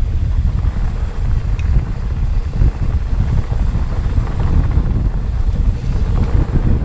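Wind buffeting a helmet camera's microphone as a mountain bike rolls along dirt singletrack, a steady fluttering low rumble.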